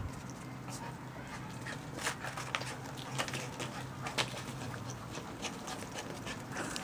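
Poodle puppies playing among plastic ball-pit balls: scattered light clicks and knocks, a few a second from about two seconds in, over a steady low hum.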